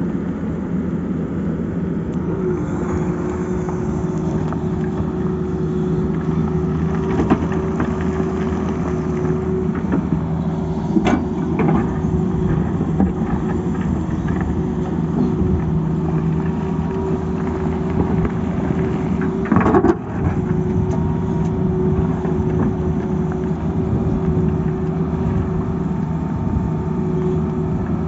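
Tata Hitachi excavator's diesel engine running steadily under working load with a constant hum, while the bucket scrapes through rock and soil. A few sharp knocks of steel on rock stand out, the loudest about two-thirds of the way through.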